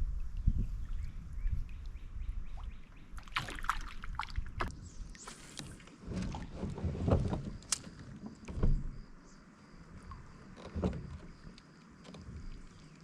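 Paddling and handling sounds of a kayak: water splashes and dull knocks against the hull, busiest in the first half and dying down later.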